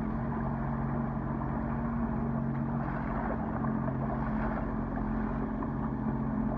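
Sea-Doo Fish Pro personal watercraft engine running steadily at low speed, a constant low drone over the rushing of water.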